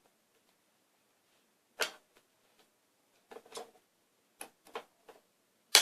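Scattered clicks and light knocks of packaging being handled as a retaining strap is worked loose to free a toy blaster from its box. The loudest is a single sharp click near the end.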